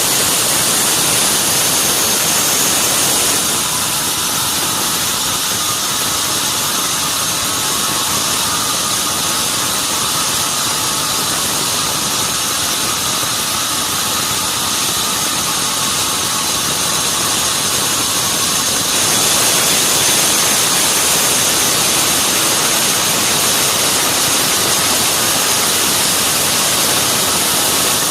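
Sawmill saw machinery running, a loud continuous mechanical noise with a faint high whine on top. The noise shifts slightly a few seconds in and again about two-thirds of the way through.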